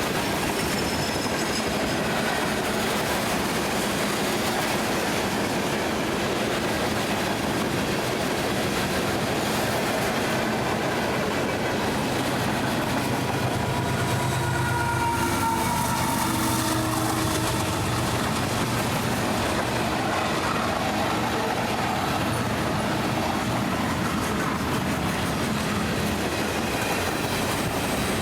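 Freight train rolling past: a steady rumble and clatter of steel wheels on rail, with faint wheel squeal tones in the middle.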